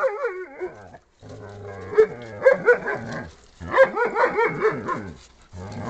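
Malamute and husky dogs vocalizing during rough play: wavering, up-and-down play growls and talking noises in about four bursts.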